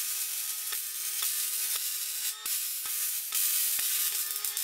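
An electric welding arc burning on a steel square-tubing corner joint, with a steady crackling hiss, a faint steady hum and sharp pops about twice a second.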